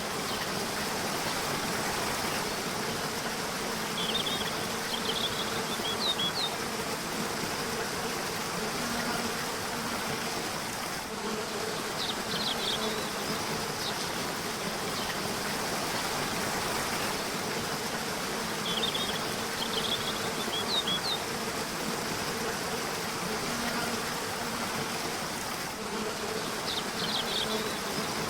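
Steady rushing of a river or waterfall, with a low steady buzzing hum under it. A bird sings four short bursts of quick high chirps, about every seven to eight seconds.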